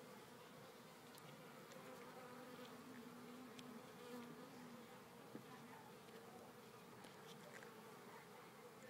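Faint, steady buzzing hum of a mass of honeybees from a colony being cut out of its nest during a removal, the pitch wavering slightly.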